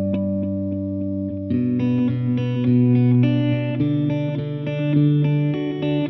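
Background music led by an electric guitar with distortion and effects, playing sustained chords over a steady bass line.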